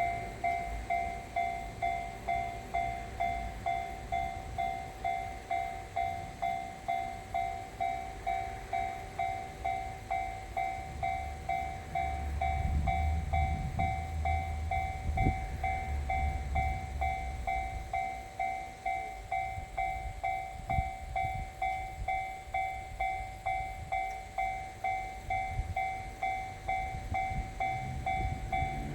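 Japanese level-crossing alarm ringing, an electronic ding repeating about one and a half times a second. A JR Kyushu 813 series three-car electric train passes with a low rumble and sharp wheel clicks, loudest about halfway through.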